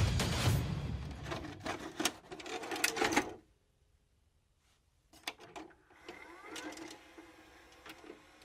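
Edited intro sound effects: a loud, clicky music sting with heavy bass cuts off suddenly about three seconds in. After a second or two of near silence come faint mechanical clicks and a whirr with a short rising whine, like a tape machine, under a VHS-static transition.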